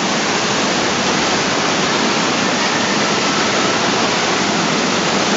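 Steady rush of water as waves churn and splash across the shallow end of an artificial wave pool.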